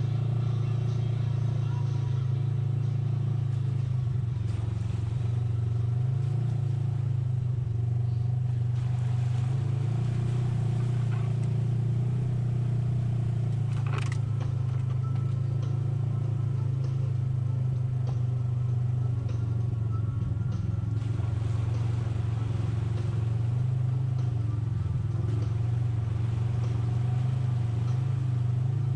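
Side-by-side UTV engine running at a steady pitch while driving, with one sharp click about halfway through.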